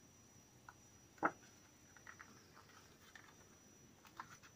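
Faint rustling and light taps of patterned paper being slid and positioned on a cutting mat, with one sharper tap a little over a second in.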